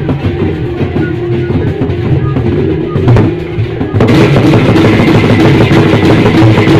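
Sasak traditional percussion ensemble playing: two-headed drums beaten by hand together with clashing cymbals and small gongs, in a dense rhythm. It grows suddenly louder and brighter about four seconds in.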